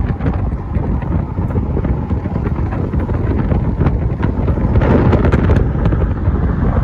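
Wind buffeting the microphone: a loud, steady low rumble with gusts, one stronger gust about five seconds in.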